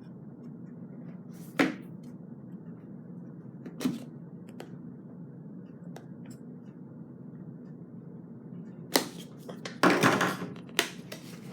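A cardboard product box being opened and handled: a sharp knock about a second and a half in, another near four seconds, then a cluster of louder knocks and rustling from about nine to eleven seconds. A steady low hum runs underneath.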